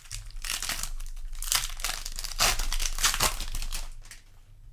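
Foil wrapper of a Magic: The Gathering booster pack being crinkled and torn by hand, a crackling rustle that dies away near the end.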